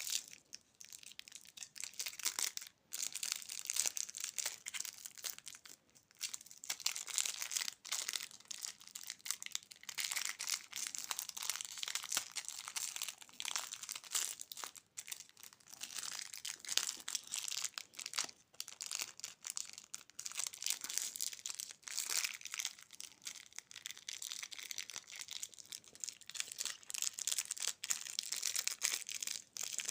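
Plastic candy wrappers crinkling as they are handled and unwrapped, a near-continuous crackle with a few brief pauses.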